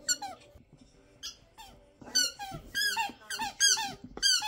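A squeaky toy squeaked over and over in quick clusters: about ten short, high squeaks, each dipping in pitch, with brief quiet gaps between.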